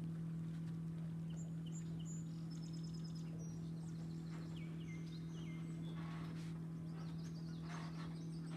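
Songbirds chirping and calling, with a quick run of repeated high notes about two and a half seconds in and more calls near the end, over a steady low hum.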